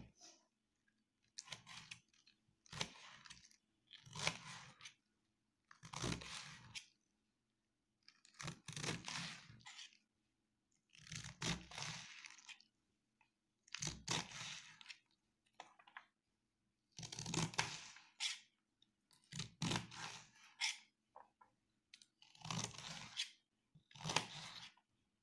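A knife slicing through a head of raw cabbage held in the hand: crisp crunching cuts in about a dozen separate bursts, one every two seconds or so, with quiet between them.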